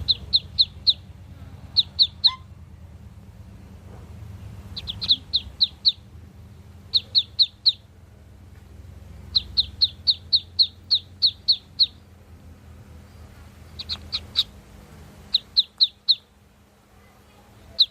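Ducklings peeping: runs of short, high, falling peeps, three to eight in quick succession, with pauses between runs, over a low steady rumble.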